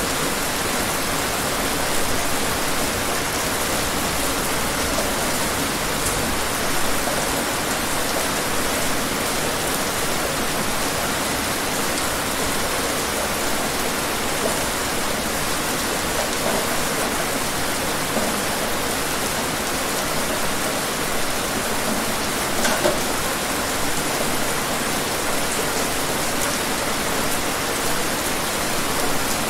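Rain falling steadily, an even hiss with a few louder single drops now and then.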